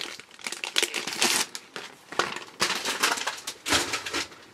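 Clear plastic packaging crinkling as a large sticker book is handled and lifted out of its cellophane wrap. The crinkling comes in irregular bursts, the loudest near the end.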